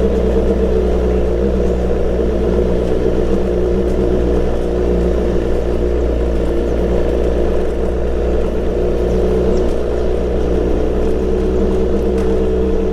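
BMW S1000XR inline-four motorcycle engine with a full Akrapovič exhaust, running at a steady speed under way, the note holding even without revving up or down.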